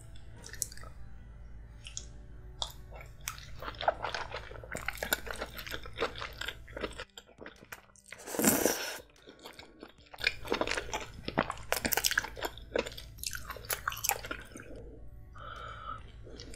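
Close-miked wet chewing and biting of king crab meat coated in a thick creamy sauce, with many sharp mouth clicks and smacks. About eight and a half seconds in there is one louder rush of noise lasting about half a second.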